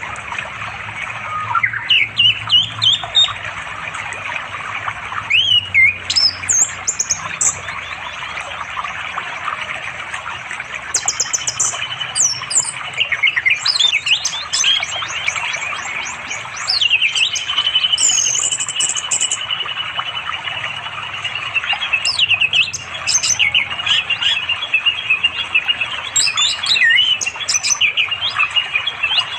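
Orange-headed thrush singing a varied run of quick whistled and chattering phrases, its song to call a female. The phrases ring out over the steady rush of a flowing stream.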